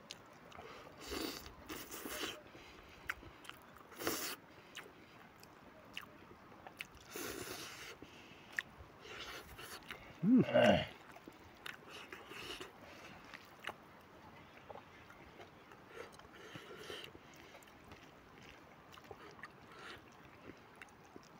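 A man eating with his hands: quiet chewing and smacking of mouthfuls of rice and smoked pork, in scattered short bursts, with one brief louder vocal sound about halfway through.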